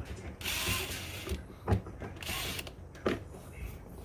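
Screws being driven into the power station's plastic case. There are two short stretches of scratchy grinding and a couple of sharp knocks from the tool and case.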